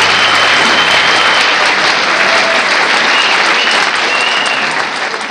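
Audience applauding loudly as a band's tune ends; the applause starts to fade near the end.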